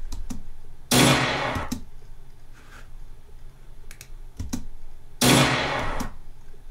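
Two loud, sharp gunshot bursts about four seconds apart, each fading over less than a second, from the edited gun clip's own audio playing back. Scattered keyboard and mouse clicks come between them.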